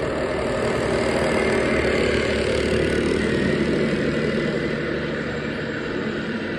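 1/14-scale Tamiya RC semi trucks driving along the lane, their onboard sound units playing a steady diesel engine idle and rumble.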